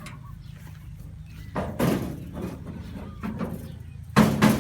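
A low engine hum running steadily, broken by two loud bangs about two and a half seconds apart, the second the louder.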